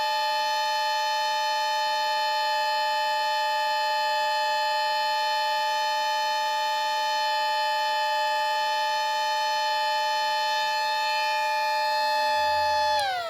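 Battery-powered miniature WW2-style air raid siren with 7- and 10-port rotors, sounding a steady dual-tone chord at full speed. Near the end it winds down, both tones falling in pitch together and fading.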